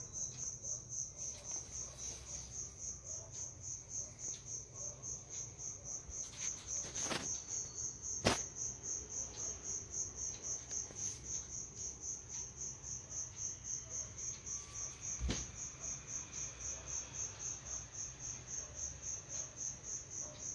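A cricket chirping steadily in the background, a high-pitched pulse about three times a second, with a few sharp clicks, the loudest about eight seconds in.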